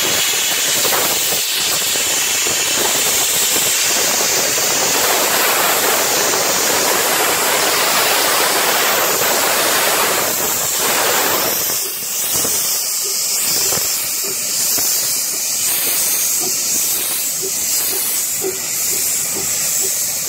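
A 15-inch-gauge RH&DR steam locomotive hissing loudly as it vents steam from its open cylinder drain cocks while moving slowly along the platform. About twelve seconds in the hiss drops to a softer level, leaving faint regular light beats.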